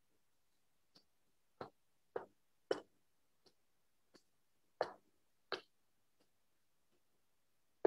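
Light, sharp clicks, about eight at uneven spacing over several seconds, the strongest few around the middle, against a near-silent background.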